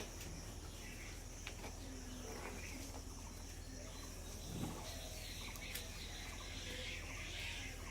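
Faint rural ambience: birds chirping and insects, over a steady low hum.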